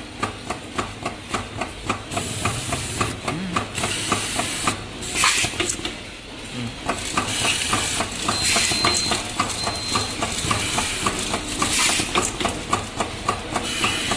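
Automatic screw feeding machine running: an even clicking, about three clicks a second, with short hisses of compressed air blowing screws up the feed tube to the screwdriver head, about three times. Brief high whines near the middle are the screwdriver driving screws.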